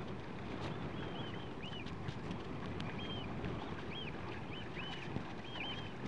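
A flock of Eurasian oystercatchers calling: short, high, arched notes, often two or three in quick succession, repeated throughout. Under them runs a steady noise of wind and choppy sea water.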